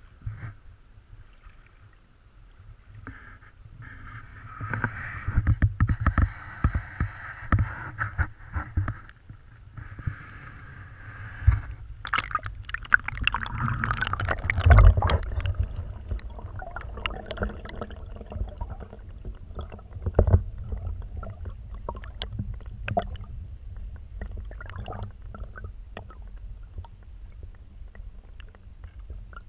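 Shallow stream water heard through a camera that goes from the surface to under the water: splashing and gurgling with low thumps, then the muffled low rumble of the current with scattered clicks and knocks. The loudest knock comes about halfway through.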